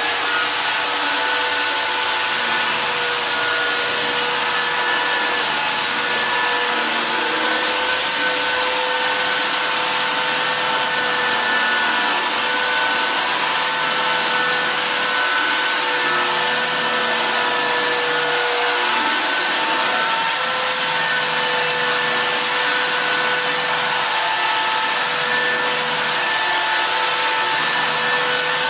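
Handheld electric sander running steadily on wooden floorboards: a constant motor whine over a steady hiss of sanding.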